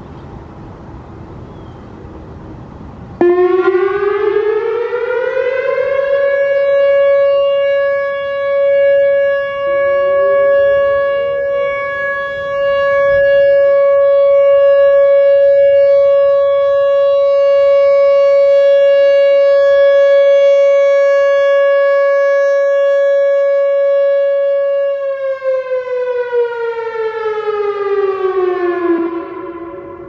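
Whelen WPS-3000 electronic outdoor warning siren, driven by an ESC-2030 board, sounding its steady 560 Hz tone for a test. The sound starts abruptly about three seconds in, rises in pitch over a few seconds and holds one steady tone for about twenty seconds. Near the end it falls in pitch and cuts off.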